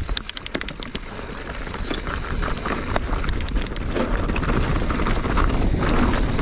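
Mountain bike descending a loose dirt trail: tyres crunching over loose dirt, with wind rushing over the on-board camera's microphone and growing louder as the bike picks up speed. Clusters of sharp rattling clicks from the bike come near the start and again about three seconds in.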